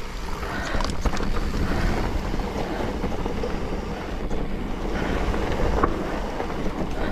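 Wind buffeting the microphone over the rumble of mountain bike tyres rolling on a dirt trail, with a few knocks and rattles from the bike.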